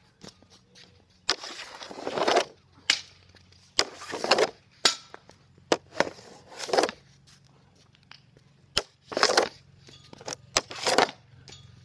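Hockey pucks shot one after another with a Bauer AG5NT composite stick off a plastic shooting pad: about five shots, each a quick scraping sweep of the blade across the pad, with sharp clacks of stick and puck between them.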